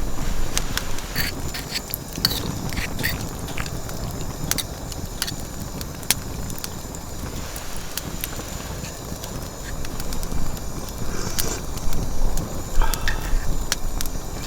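Wood fire crackling in a mesh fire pit, with irregular sharp pops, under a steady low rumble of strong wind on the microphone.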